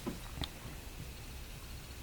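Quiet room tone with two small clicks, the sharper one about half a second in.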